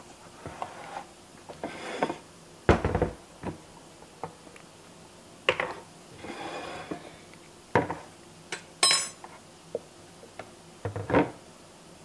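A ceramic plate and metal utensils being handled on a kitchen counter: scattered knocks and clicks, a heavier thump about three seconds in, short scrapes, and a bright ringing clink of metal on china about nine seconds in.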